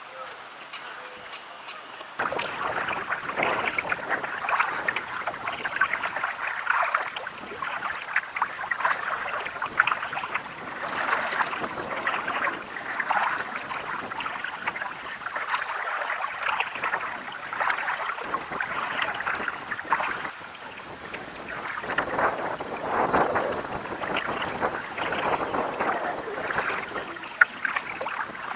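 Water sloshing and splashing against a kayak's hull as it moves through choppy river water, in uneven surges that pick up about two seconds in.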